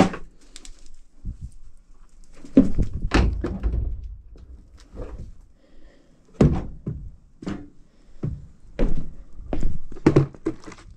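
A string of knocks and thumps as a wet/dry shop vacuum and its hose are lifted and carried out of the back of a work truck; the vacuum is not running.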